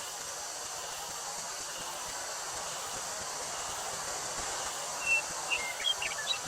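Steady rustling of wind through a wheat field, with a continuous high drone of summer cicadas. A little before the end, a bird chirps a quick run of short notes.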